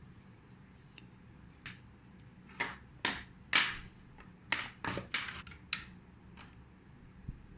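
Plastic casing of an RF ceiling-fan remote control being opened: a string of sharp clicks and short scrapes, about nine, a few of them louder, bunched in the middle of the stretch.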